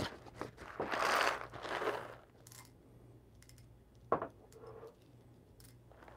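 Dry rustling of coffee beans being poured for a 13 g dose, lasting about a second and a half in two swells, followed by a single sharp click about four seconds in.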